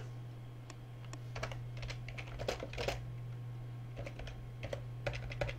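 Typing on a computer keyboard: short runs of keystrokes with pauses between them.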